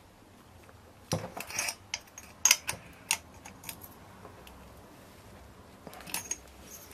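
Light metallic clicks and clinks of a hand tool against the bolts and finned aluminium cylinder of a Mobylette moped engine as its cylinder bolts are tightened, scattered through the first few seconds and again near the end.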